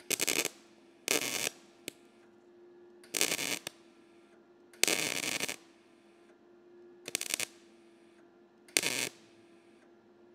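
MIG welder arcing in six short crackling bursts, each well under a second, as small blobs of weld are built up on top of a broken-off stud rusted into a nut. A faint steady hum runs underneath.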